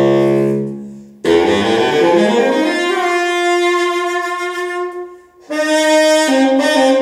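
Baritone saxophone played solo: a long low note fades out in the first second, then after a short break a new note bends upward and is held for several seconds. Near the end it moves to two shorter held notes at different pitches.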